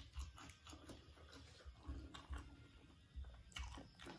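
Faint ticks and taps of a plastic Bon Cabe chili-flake shaker bottle being shaken over food, with a few sharper knocks near the end as the bottle is set down.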